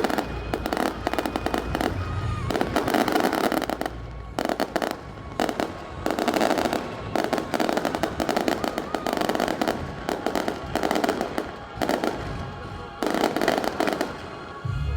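Fireworks going off: dense crackling and popping that comes in bursts of a second or two, one after another.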